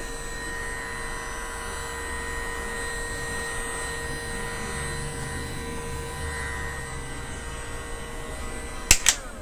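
DeWalt heat gun running, its fan motor giving a steady whine over the rush of air. Near the end it stops with two sharp clacks.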